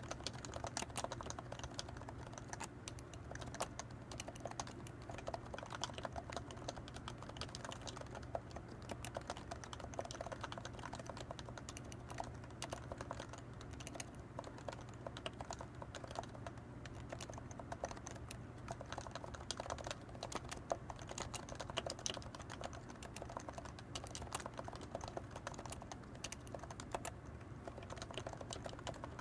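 Continuous fast typing on a Leopold FC660C Topre electrostatic capacitive keyboard with 45 g rubber-dome springs and PBT keycaps: a steady stream of soft, rapid keystroke clicks.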